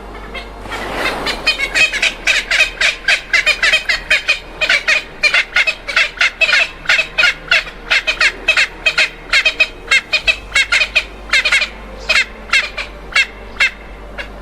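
A bird giving a long rapid series of harsh, repeated calls, about three to four a second, starting about a second in and stopping just before the end.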